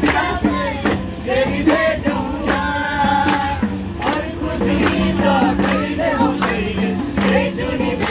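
A group of people singing a song together, clapping their hands in time, about two claps a second.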